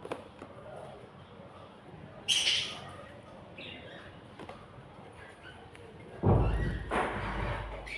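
Baby birds squawking: one loud, shrill call about two seconds in and a fainter one a second later. Near the end there is a loud thump with a low rumble lasting about a second and a half.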